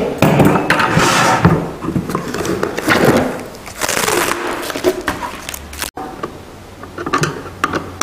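Flexible aluminum foil dryer vent hose crinkling and crackling as it is handled. After a sudden break about six seconds in, softer scrapes and clicks as the hose end is fitted onto a plastic bucket.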